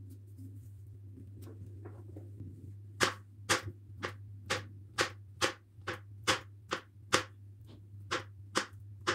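Kitchen knife slicing a peeled banana on a plastic cutting board, the blade tapping the board about twice a second from about three seconds in. Before the cutting, only faint handling sounds of the banana being peeled, over a steady low hum.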